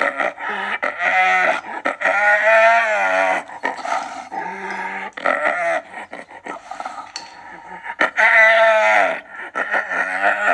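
Hyena calling in a string of short pitched cries with a quick, wavering warble, the giggling sound of its laugh. There is a longer call about two seconds in and a quieter gap before the cries pick up again near the end.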